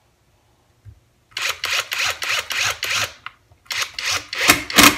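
Greenworks 24V brushless impact driver fired in short trigger bursts, about four or five a second, to start a 2-inch screw into a 4x4 block without a pilot hole. There is a brief pause just past halfway, then more bursts.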